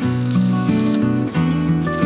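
Background music, its notes changing in steps several times a second.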